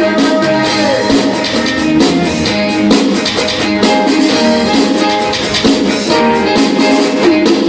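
Live band playing a song, keyboard over a steady drum beat.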